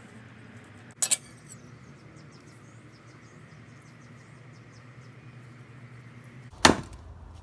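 Two sharp strikes, the first doubled about a second in and a louder single one near the end, over a steady low hum.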